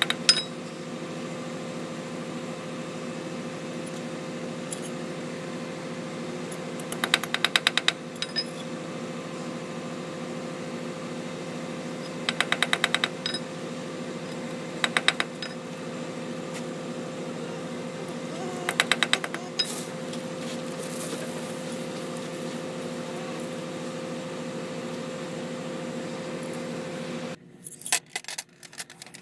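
A steady hum runs under several short bursts of rapid, even clicking, and the hum cuts off suddenly near the end.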